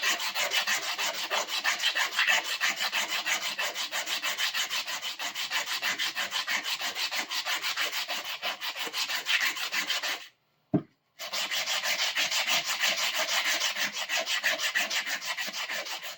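Sandpaper rubbed by hand back and forth over a wooden handle in quick, even strokes, smoothing off rough edges and splinters. There is a brief break with a single click about two-thirds of the way through.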